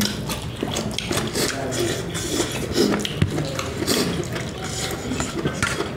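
People eating with their hands: wet chewing and lip-smacking mixed with irregular small clicks and squelches as rice is worked on the plates.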